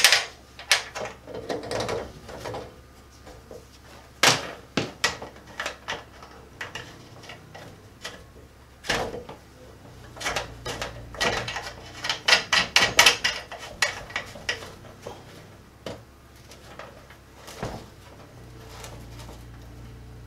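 Scattered clicks, knocks and rattles of gloved hands working the surge protector's wires and lock-ring fitting in the knockout of a steel breaker panel, with a quick run of clicks about 11 to 14 seconds in.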